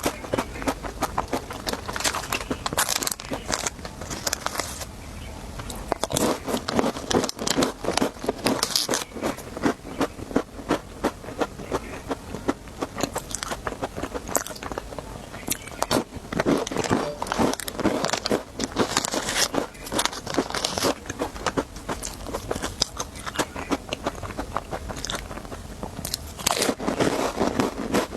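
Close-miked biting and chewing of crunchy snacks: a dense, continuous run of sharp crunches and crackles.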